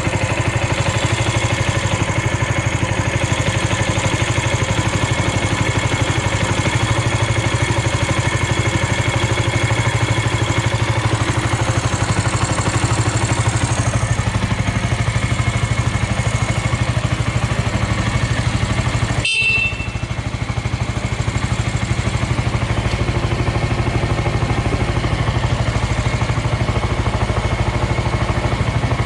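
Suzuki Volty's 250 cc single-cylinder four-stroke motorcycle engine idling steadily, running without abnormal noises. A momentary break about two-thirds of the way through, after which it idles on the same.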